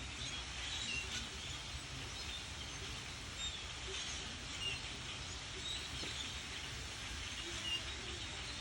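A large flock of blackbirds calling together: a dense chatter of many short high chirps over a low steady rumble.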